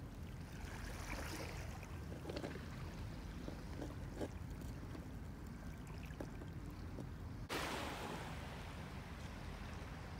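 Harbour ambience: a steady low rumble of wind on the microphone over faint water sound, with a few small knocks. About seven and a half seconds in the background changes abruptly and a brighter hiss comes in.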